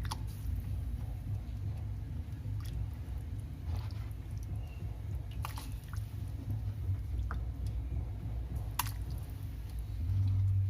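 Raw chicken pieces being put into a pot of water: wet squishing and plopping with about half a dozen sharp knocks, over a steady low rumble that grows louder near the end.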